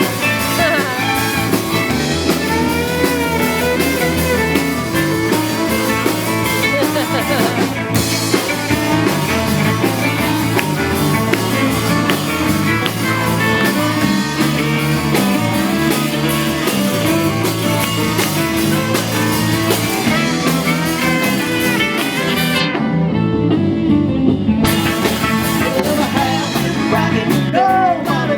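Live band playing bluesy rock, with singing and guitar over a steady bass line. The treble briefly drops out for about two seconds near the end.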